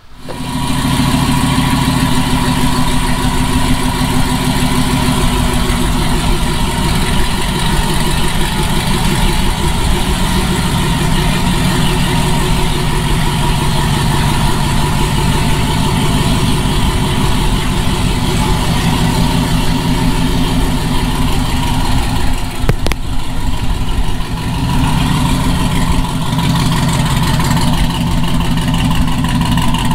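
A car engine running steadily at idle, loud and close, with a brief drop in level about three-quarters of the way through.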